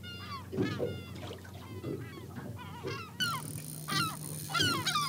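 A flock of gulls calling: many short, falling squawks overlapping in quick succession.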